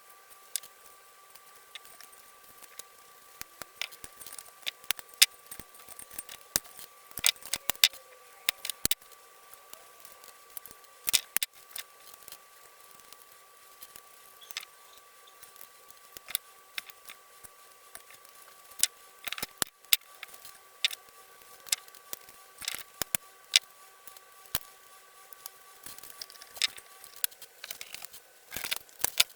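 Irregular small clicks and metallic clinks of tools and parts being handled, over a faint steady high hum that stops near the end.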